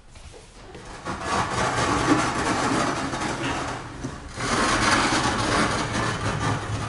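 Sliding blackboard panels moving along their tracks, a steady rumbling rub in two stretches with a brief dip about four seconds in.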